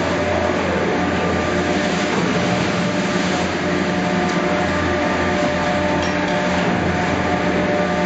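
Steady mechanical hum and rumble of a Garaventa detachable chairlift station, its machinery moving the bubble chairs through the loading area, with several held tones.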